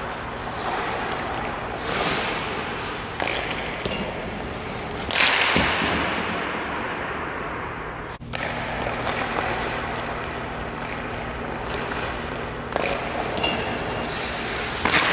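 Ice hockey shooting practice in an empty indoor rink: several sharp stick-on-puck cracks and puck impacts echo through the arena, the loudest about five seconds in. A steady low hum runs underneath, and there are a couple of short high pings.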